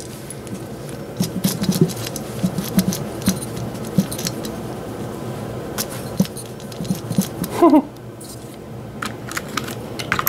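Light clicks, taps and rattles of a nitro RC buggy and its parts being handled and set down on a table.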